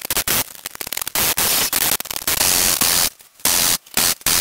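Baotian 50cc four-stroke scooter engine sputtering after kick-starting, heard as loud, harsh crackling in irregular bursts that drop out briefly twice past the middle, the sound overloading the microphone.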